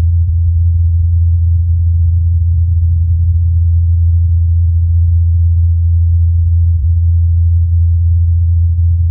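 NASA's Ingenuity Mars helicopter in flight, its spinning rotors heard as a loud, steady low hum that does not change.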